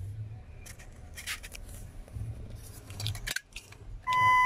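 Rustling and light clicks of hands handling wires and trim under a pickup's dashboard. About four seconds in, a steady electronic beep tone starts and holds. No starter cranking is heard.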